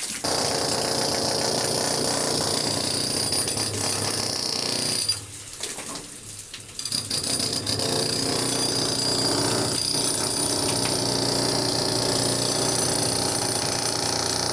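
A power tool running steadily with a high whine. It stops for about two seconds around the middle, then starts again and runs on.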